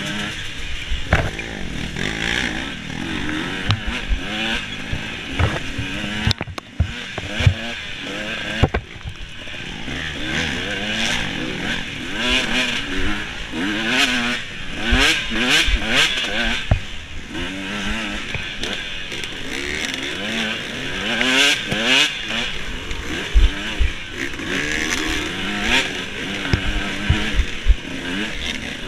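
Dirt bike engine being ridden hard over rough trail, revving up and down over and over as the throttle is worked, with frequent knocks and clatter.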